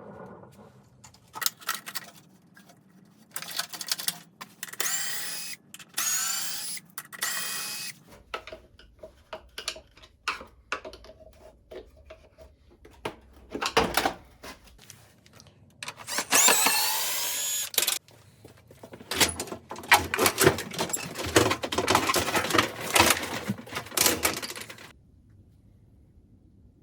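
Cordless drill-driver running in short bursts, its whine sweeping in pitch, between clicks and knocks of tools and metal parts being handled during washing machine disassembly.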